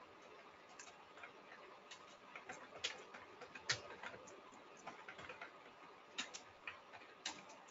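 Faint, irregular keystrokes on a computer keyboard, typing out a line of code.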